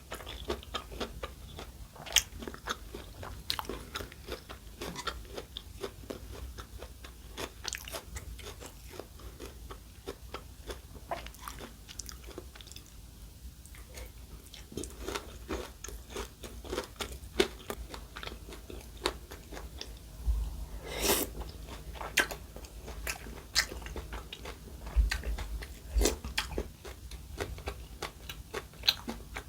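Close-miked mukbang eating sounds: chewing and crunching mouthfuls of food in irregular, crackly bites, a little louder for a moment around the middle.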